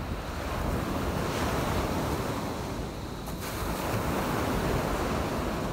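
Small surf waves breaking and washing up onto a sandy beach, with wind rumbling on the microphone.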